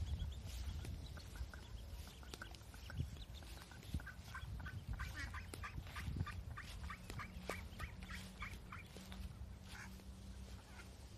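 Ducklings peeping in many short, high calls in quick succession, thickest in the middle of the stretch.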